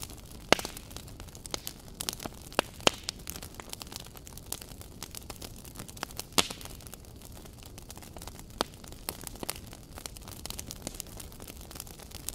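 Crackling fire: a steady hiss with irregular sharp pops and snaps, the loudest about half a second in.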